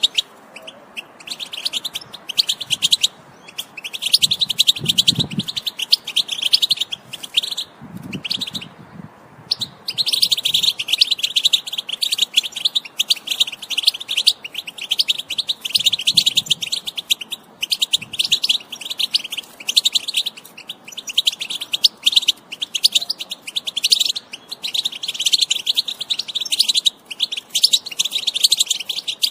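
European goldfinch singing: a fast, continuous twittering song of rapid high notes, with a longer pause about a third of the way in.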